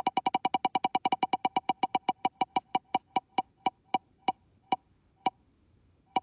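Ticking of a spinning prize wheel slowing to a stop: rapid, pitched ticks, about eight a second at first, spacing out steadily until a final tick near the end as the wheel comes to rest.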